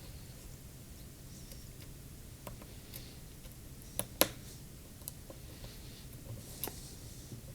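Scattered light clicks and taps from handling the phone's parts and small tools at the bench, with two sharper clicks close together about four seconds in, over a faint steady hum.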